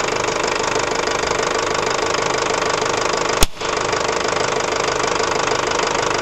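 Ford Transit 2.5 diesel engine idling with a steady clatter. About three and a half seconds in comes a single sharp crack: the HHO (hydrogen-oxygen) gas bubbling out of the electrolyser's bubbler jar being ignited.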